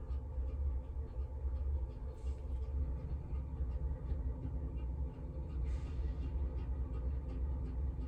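Steady low rumble, with faint light ticks now and then.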